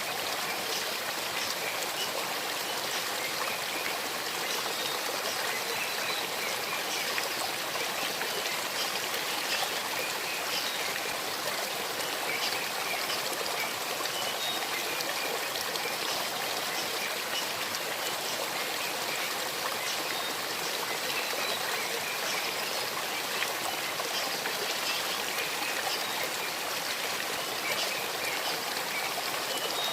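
Small forest stream babbling steadily over stones.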